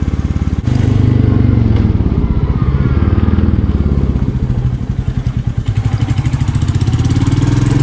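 Motorcycle engine running under way, with its fast firing pulse throughout. It gets louder as the revs pick up about a second in, eases off around five seconds, and pulls up again near the end.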